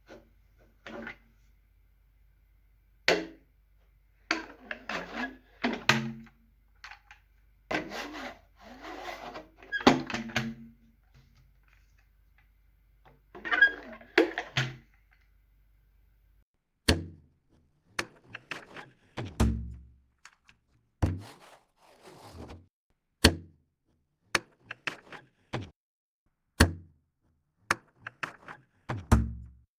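Close recording of a toy car and a tiny drum: irregular clicks, rattles and short scrapes, then, from a little past halfway, sharp separate knocks, each with a short low thud after it.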